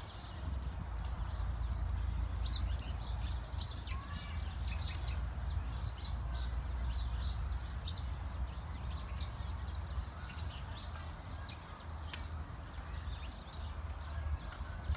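Small birds chirping in many quick, short calls, thickest in the middle of the stretch, over a steady low rumble.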